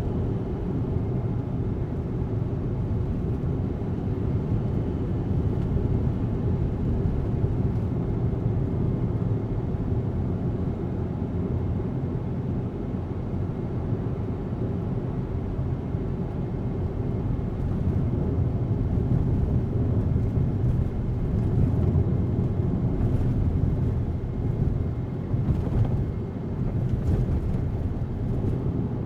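Steady low road and engine rumble heard inside the cabin of a Daihatsu Atrai RS 4WD van on the move, with a few faint ticks in the second half.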